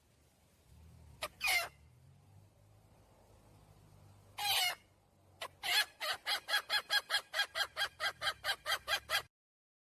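Domestic hen calling: two short separate calls, then a rapid run of about twenty clucks at roughly five a second that stops abruptly.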